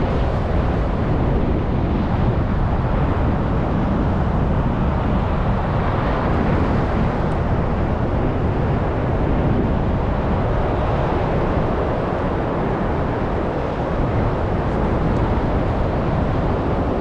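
Steady wind rumble over the microphone mixed with the wash of breaking surf.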